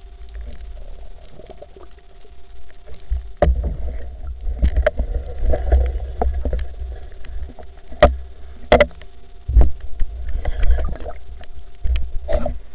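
Muffled underwater sound picked up through a camera's waterproof housing: a low rumble of water moving against the housing, with a faint steady hum and a run of sharp clicks and knocks, the loudest a few in a row about eight to ten seconds in.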